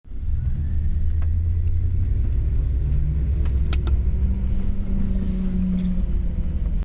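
Vehicle driving in four-wheel drive with a steady low rumble and a droning hum that comes and goes, along with a few faint clicks. This is the noise the owner calls a bad sound in 4wd.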